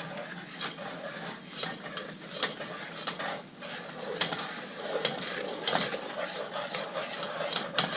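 Wooden spoon stirring the fudge mixture in a saucepan on the stove, with irregular scrapes and light knocks against the pan.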